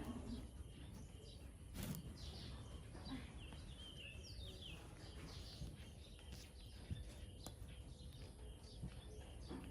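Faint background ambience: steady low noise with scattered high chirps and a short falling chirp in the middle, and a soft click about two seconds in.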